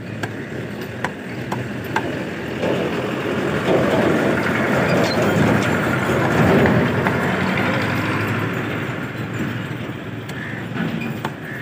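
A motor vehicle's engine swelling loudly from about three seconds in and fading away by near the end, as it passes close by. Sharp knocks of a meat cleaver chopping chicken on a wooden block come in the first two seconds and again near the end.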